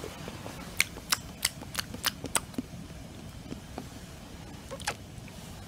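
Sharp taps, about six in quick succession from about a second in, then one more near the end, over a faint steady hiss.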